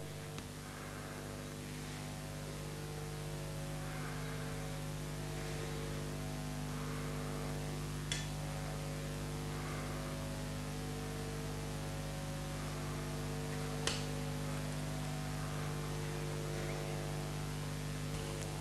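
Steady electrical mains hum, a low buzz with a stack of steady overtones, with two brief faint clicks, about eight and fourteen seconds in.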